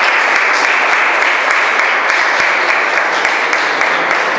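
Audience applauding, a steady spell of hand-clapping.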